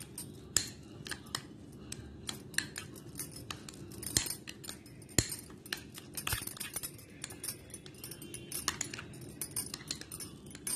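A metal spoon stirring a soft butter and garlic mixture in a small glass bowl, with irregular clicks and scrapes of the spoon against the glass.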